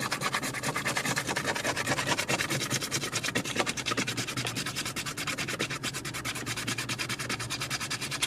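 A coin scratching the coating off a scratch-off lottery ticket in rapid, even back-and-forth strokes, several a second.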